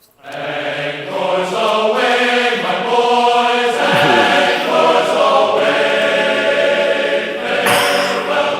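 Choral music: a choir singing long held chords that change every second or so, starting abruptly.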